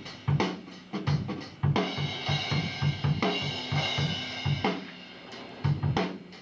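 Drum kit playing a steady rock beat: bass drum and snare hits with cymbals and hi-hat over them. The beat thins briefly about five seconds in, then picks up again.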